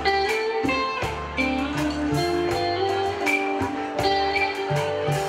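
Band music with guitar and electric bass, playing an instrumental passage over a steady beat with sustained held notes.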